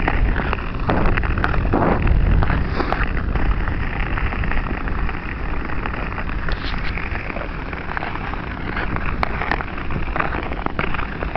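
Ice skate blades scraping and gliding over rough, snow-dusted natural ice, a steady gritty noise with a few sharper scrapes, over a low rumble of wind on the microphone.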